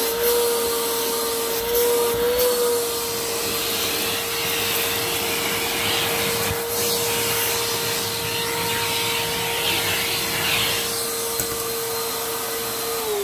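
Vacuum cleaner running at full speed with a steady whine, its hose nozzle sucking up grit and fine sand from a tile floor with scattered crackling. Near the end it is switched off and the whine falls away as the motor spins down.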